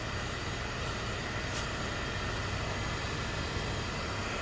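Steady mechanical hum of a cylinder-head surfacing machine running, with a couple of faint light clicks.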